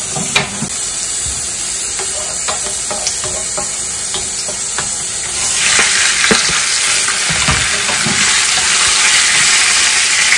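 Dried red chillies and bay leaves sizzling in hot oil in a wok, stirred with a wooden spoon that taps against the pan. About five and a half seconds in, cubes of raw pork belly go into the oil and the sizzle becomes louder and fuller.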